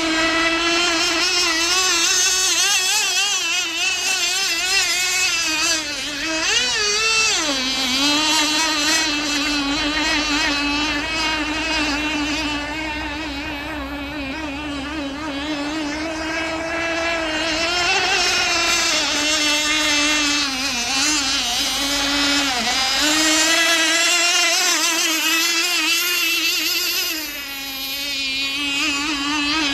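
Single-cylinder two-stroke nitro glow engine of a TFL Caudwell F1 RC racing boat running flat out, a high, buzzing engine note whose pitch wavers continually. The note dips briefly about six seconds in, again just past twenty seconds, and once more near the end.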